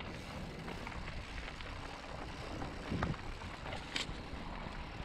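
Mountain bike rolling along a dirt track: steady tyre and wind noise with light rattles from the bike, a low knock about three seconds in and a sharp click about a second later.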